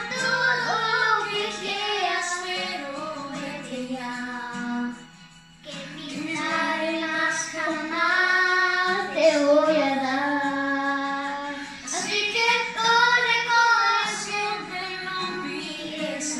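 A young girl singing a Spanish-language pop song into a karaoke microphone over the song's backing track, with a brief break in the singing about five seconds in.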